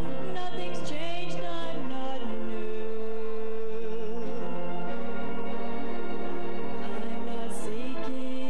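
Church music: a woman singing a slow melody with long, wavering held notes over keyboard accompaniment.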